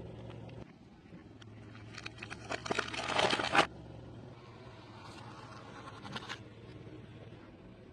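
Close-miked eating: a run of crisp crunching bites and chews that ends abruptly, then softer chewing.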